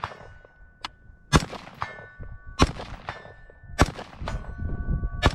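AR-15 rifle in .223/5.56 firing four single shots about 1.2 seconds apart. About half a second after each shot comes a ringing ding, typical of a bullet striking a distant steel target.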